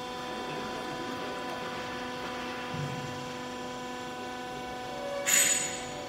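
Steady electric machine hum holding several fixed tones, with a short, loud hissing rustle near the end.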